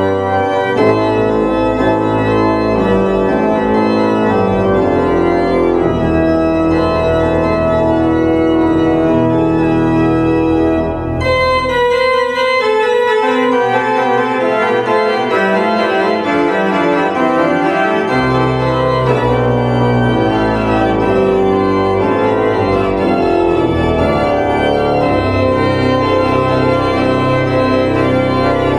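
Organ playing slow, sustained chords. The deep bass notes drop out for several seconds near the middle and then come back in.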